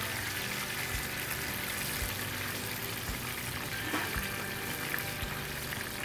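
Battered banana fritters deep-frying in hot oil, in their second fry: a steady bubbling sizzle with fine crackling. A light tap about four seconds in.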